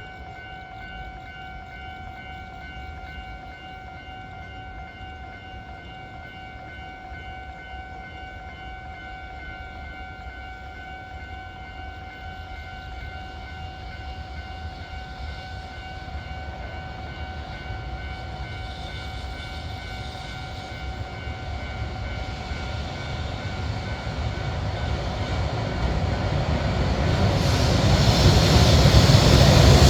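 Level-crossing warning bell ringing with a steady tone while a container freight train hauled by an EH500 electric locomotive approaches, its rumble growing steadily louder and loudest near the end.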